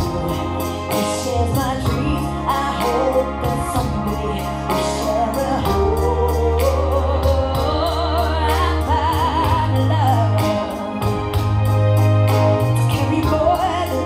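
Background music: a song with singing over sustained bass notes and a steady beat.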